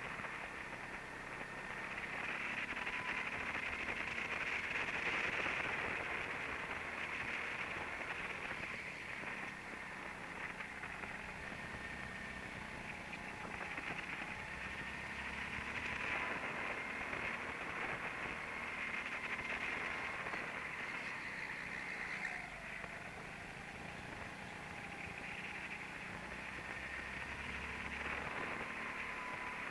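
Go-kart on track recorded onboard: a continuous rushing noise with the kart's motor whining underneath, the whine rising and falling in pitch as the kart speeds up and slows through the corners.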